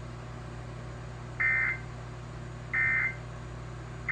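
Emergency Alert System end-of-message data bursts: three short buzzing bursts of digital data tones, about a second and a third apart, marking the end of the warning broadcast. A steady low hum runs beneath.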